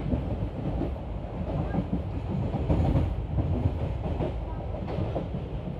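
Indian Railways express train running at speed: a steady rumble of the coach wheels on the rails with an irregular clickety-clack as they cross rail joints, heard through an open coach window.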